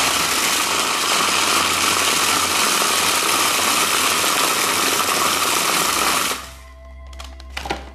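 Countertop food processor running at full speed, blitzing ginger nut biscuits into crumbs: a loud, steady, noisy whir. It switches off about six seconds in and spins down.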